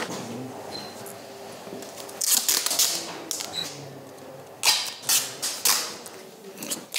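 Silver duct tape pulled off the roll in quick ripping strokes: one cluster about two seconds in, another near five seconds.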